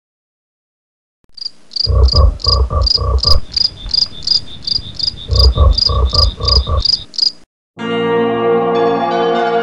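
Frog calls: a steady series of short, high chirps, about three or four a second, with two bouts of deeper pulsed croaks beneath. They stop shortly before the end, and music with bell-like tones begins.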